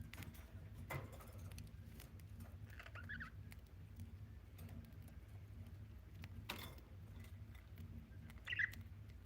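Budgerigar giving a few short, soft chirps, once about three seconds in and again near the end, among scattered light clicks and scratches over a low steady hum.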